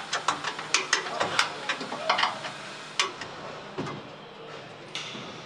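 Car assembly-line machinery and tools clicking and clacking over a steady factory hum. A quick run of sharp metallic clicks comes in the first two and a half seconds, then a few single clacks.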